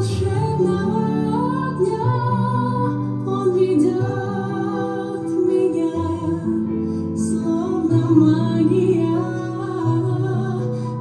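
Music: a slow, gentle song, a voice singing over sustained bass notes that change every second or two.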